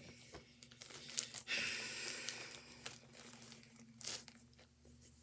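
Plastic zip-top bag filled with shaving cream crinkling and rustling as it is handled and wiped, in irregular bursts with a few sharp crackles.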